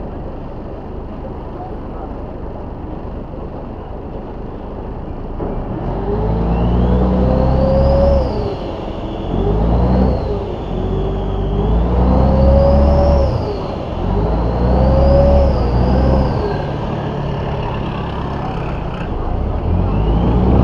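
Tourist boat's engine running with a steady drone, then after about six seconds being throttled up and down four times, its pitch rising and falling each time and climbing again near the end, as the boat manoeuvres in towards a pier.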